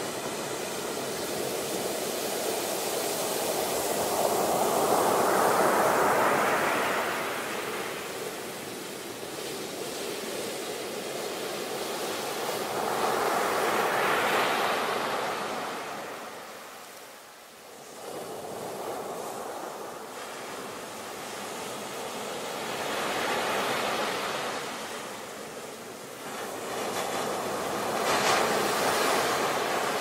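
Ocean surf breaking on a beach, a steady rush of foaming water that swells four times as waves crash and then fades between them, with a brief lull a little past the middle.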